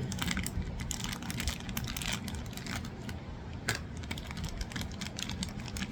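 Small plastic gachapon toy parts clicking and clattering as they are handled, in a quick, irregular run of light clicks.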